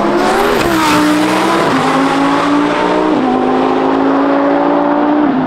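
A race car's engine at full throttle, accelerating hard down the strip. Its pitch holds or climbs a little, then drops sharply about four times as it shifts up through the gears.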